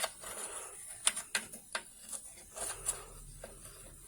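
Scattered light clicks and taps of parts being handled as a bolt is screwed by hand into a small generator's recoil starter. A faint low hum comes in past halfway.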